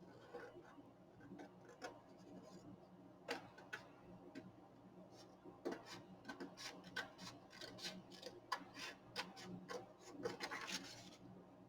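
Scissors cutting out a paper shape: faint, irregular small snips, with a brief rustle of paper near the end.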